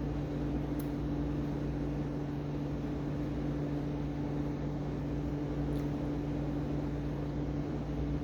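Steady mechanical hum with two low, even tones over a low rumble, like a fan or appliance running, with two faint clicks, one about a second in and one near six seconds.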